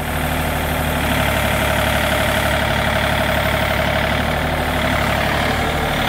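Wood-Mizer LT40 sawmill's 35-horsepower diesel engine running steadily, with a steady whine over it from about a second in until near the end.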